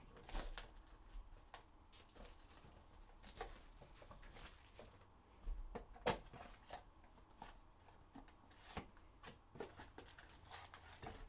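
Faint handling of a sealed cardboard Topps Chrome Sapphire box: scattered taps, rustles and scrapes as the box is turned over and its seal and lid flap are pulled open. A sharper click comes about six seconds in.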